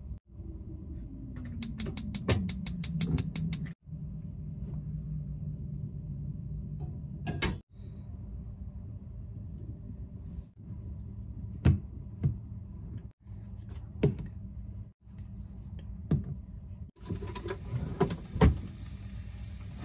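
Gas cooktop burner igniter clicking rapidly, about seven clicks a second for two seconds, followed by scattered clunks of a pan and utensils. Near the end, ground beef starts sizzling in a hot pan over the gas flame.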